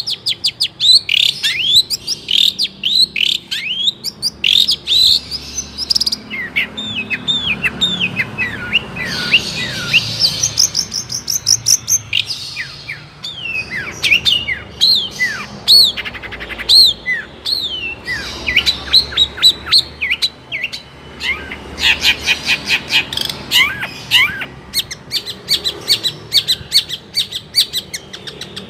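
Long-tailed shrike (cendet) singing a fast, varied song with hardly a pause: runs of short down-slurred whistles, chattering, and bursts of rapid ticking trills.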